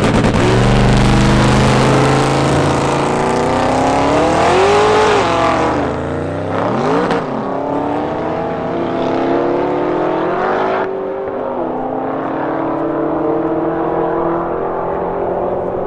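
Twin-turbo 427 cubic-inch LS-based V8 in a 1961 Buick Skylark drag car launching at full throttle, its pitch climbing and dropping back through the gear changes. About four seconds in, the revs flare and fall as the tires spin and the throttle is feathered. The engine then pulls on and fades as the car runs away down the half-mile.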